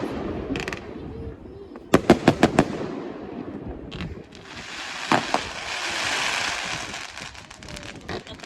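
Aerial fireworks bursting: a quick string of about five sharp bangs about two seconds in, then a couple more bangs around five seconds, with a steady hissing crackle through the second half.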